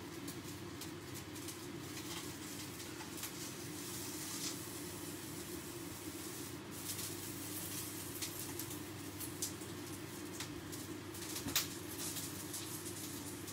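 Beef steak's fat cap sizzling and crackling in a hot frying pan as it is held fat-side down to render out its fat, with irregular small spits and one sharper pop near the end, over a steady low hum.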